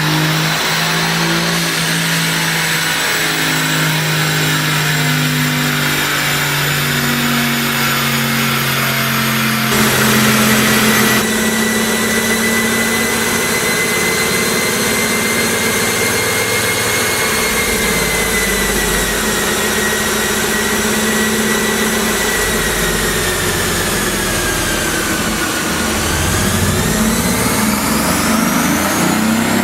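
Mercedes-AMG GT S twin-turbo V8 running on a chassis dyno, with a steady high whine over the engine note. Near the end the pitch climbs as the engine accelerates.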